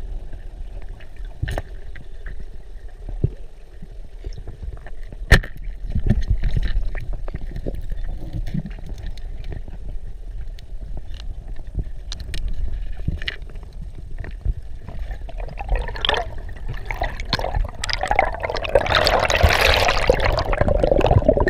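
Water splashing for a few seconds near the end, over a steady low rumble with scattered sharp clicks and knocks.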